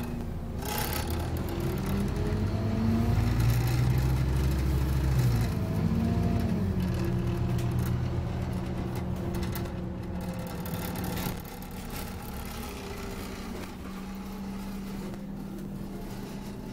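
Scania OmniCity double-decker bus engine heard from inside the passenger saloon while driving. The engine note climbs over the first few seconds and drops about five seconds in. About eleven seconds in it eases to a quieter, steady hum.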